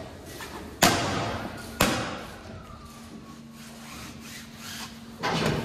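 Sheet-metal body panel being pushed into place by hand: two sharp metallic bangs about a second apart, each ringing briefly, then a louder scraping rub near the end.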